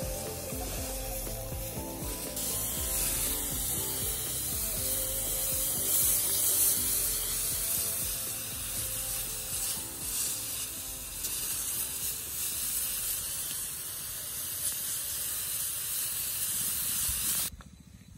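Hose-fed weed sprayer spraying: a steady hiss over a fast mechanical rattle, cut off suddenly near the end.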